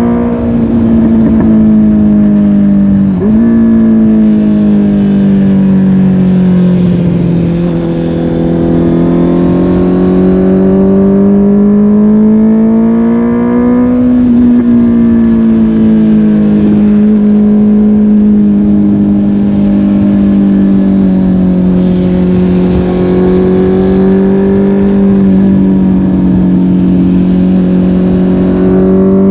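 Honda CB650R's inline-four engine through a MIVV GP PRO Carbon aftermarket exhaust, running under way at moderate revs. The note rises and falls gently as the throttle changes, with a quick dip in pitch about three seconds in.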